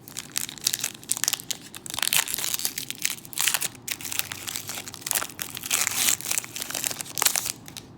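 Foil wrapper of a Pokémon Sun and Moon booster pack crinkling and tearing as it is pulled open by hand, a loud, dense crackle that stops shortly before the end.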